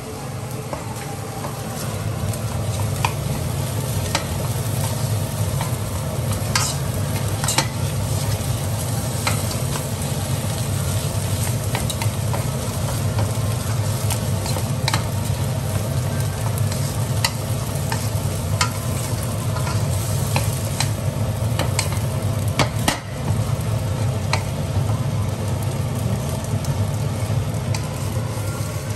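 Fried rice stir-frying in a nonstick wok: steady sizzling, with the wooden spatula scraping and tapping against the pan in frequent short clicks, over a steady low hum.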